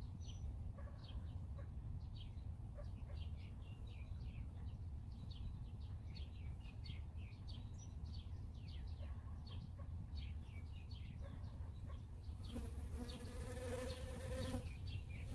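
A honeybee buzzing close past the microphone for about two seconds near the end, over frequent short bird chirps and a steady outdoor background.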